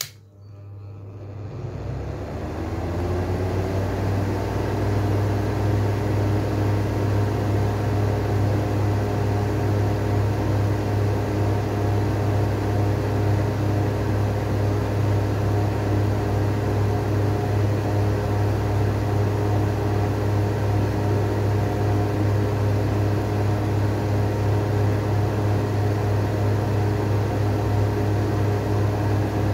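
Two Lenco exhaust fans, 200 mm and 250 mm, switched on together with a click, spinning up with a rising whine over about four seconds, then running steadily with a strong low motor hum and the rush of moving air.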